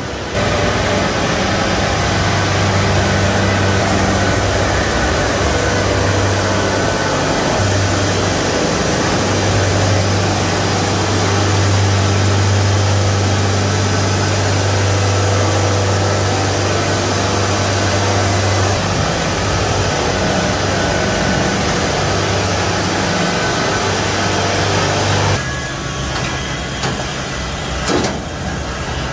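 Kubota DC70H combine harvester's diesel engine running steadily with a deep drone, as the machine is driven up onto a flatbed truck. The sound drops off about four seconds before the end.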